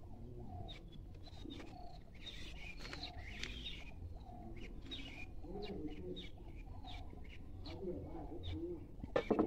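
A dove cooing, short notes repeating evenly about every two-thirds of a second, with small birds chirping. A pair of sharp knocks near the end.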